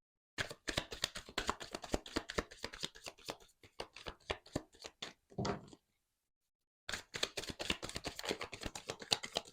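Tarot cards being shuffled by hand: a rapid run of papery card clicks in two spells, broken by a pause of about a second past the middle.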